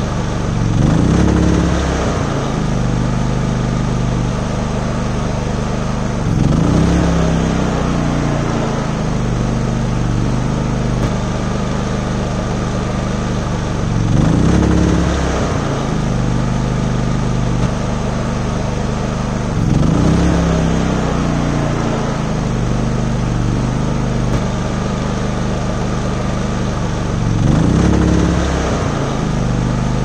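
Westinghouse inverter generator engine running under the load of a rooftop air conditioner started through a SoftStartRV soft start. Its speed swells up and back down five times, every six to eight seconds.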